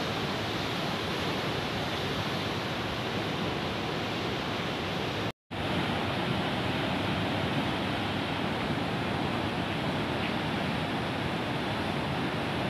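Floodwater released from a reservoir's opened dam gates rushing as whitewater over rocks: a steady, dense rush of water, broken by a brief dropout about five seconds in.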